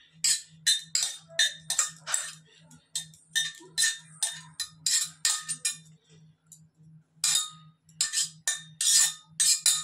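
A steel spoon scraping and clinking against a stainless steel pot, scooping out steamed sweet corn kernels: a run of quick metallic scrapes and taps with a short lull about six seconds in. A faint low pulsing hum runs underneath.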